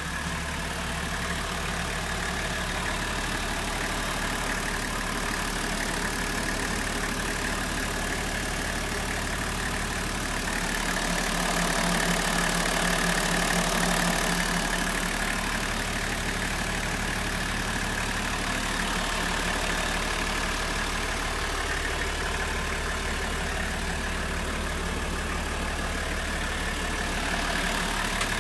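Toyota 1HZ 4.2-litre inline-six diesel idling steadily, heard through the open engine cover inside the minibus cabin. It grows louder and brighter for a few seconds in the middle as the microphone comes close to the engine.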